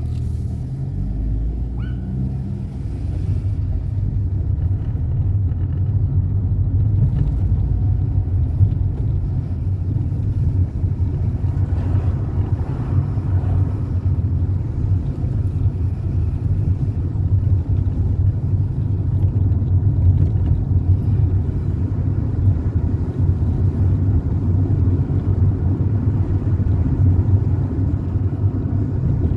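Car driving along: a steady low engine and road rumble that grows a little louder over the first few seconds, then holds steady.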